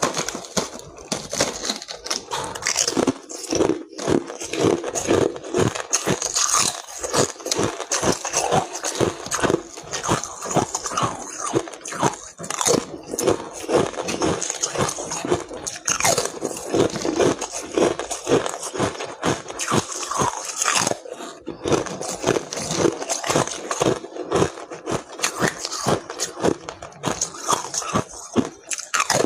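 A person chewing and crunching ice, with a rapid, irregular run of crisp cracks and crunches.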